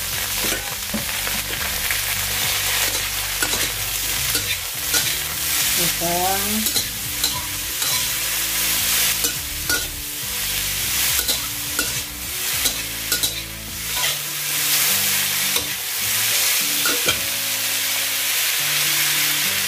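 White beech mushrooms sizzling in hot oil in a wok while a spatula stir-fries them, scraping and tapping against the pan again and again.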